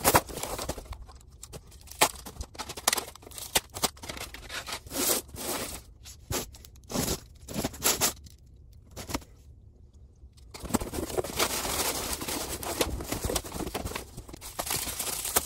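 Packaging being torn open by hand: a plastic mailer bag ripping and crinkling in short sharp bursts, then a denser, continuous rustling of cardboard and plastic wrapping from about ten seconds in.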